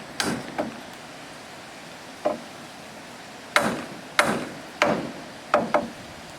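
A tool striking wood, about eight sharp blows at irregular intervals, two of them in quick pairs, during timber work on a wooden house frame.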